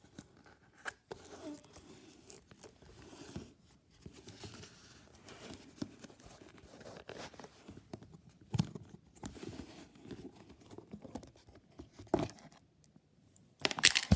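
Plastic food-storage container's snap-on lid being worked loose by hand and pulled off: crinkling, scraping and clicking of plastic, with a few louder knocks and a louder rustle near the end.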